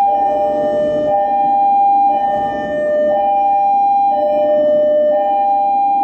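Ship's engine-room alarm sounding a two-tone hi-lo signal, a higher and a lower steady tone taking turns about once a second.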